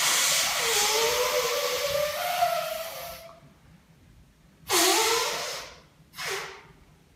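A man blowing his nose hard into a handkerchief: one long blow with a wavering honk, then a shorter blow about four and a half seconds in and a brief third one just after.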